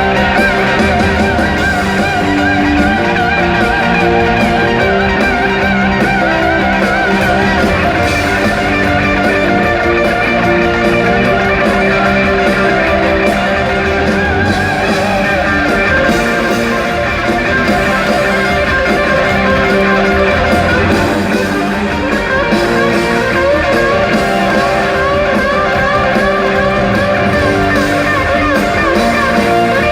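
Live rock band playing loud, continuous music led by electric guitars, over bass and drums.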